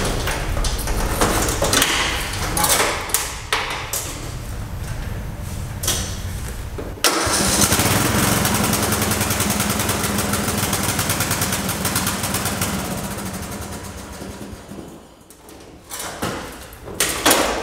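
An old Craftsman 42-inch riding mower's small engine starts on its newly installed battery and runs. It gets suddenly louder about seven seconds in, then fades away toward the end.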